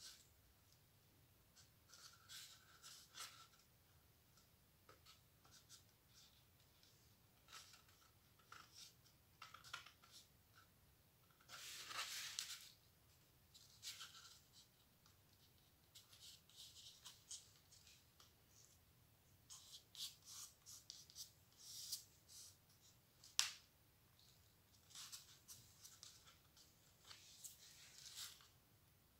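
Faint rustling and scratching of paper cutouts being laid and pressed flat onto a cardboard sheet by hand, in short scattered strokes, with one longer scrape partway through and a single sharp tick later on.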